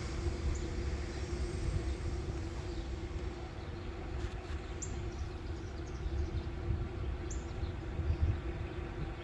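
A low, steady rumble with a faint hum, and short high bird chirps about every two and a half seconds.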